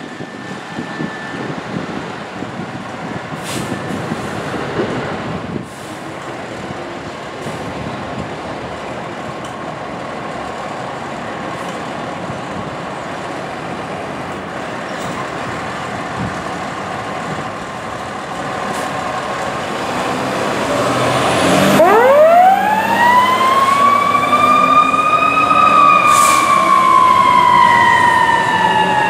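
Pierce fire engine's diesel engine running as the truck pulls out, with a few short hisses of air. About twenty seconds in, its siren winds up in a steep rising glide, peaks a few seconds later and then slowly falls in pitch as the engine drives off responding to a call.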